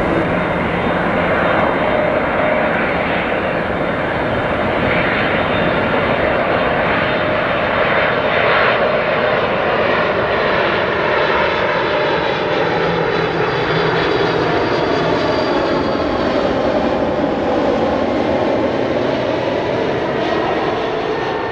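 Boeing 747 freighter's four jet engines on approach, passing low overhead: a loud, steady jet roar with high whining tones that fall in pitch as it goes by in the second half.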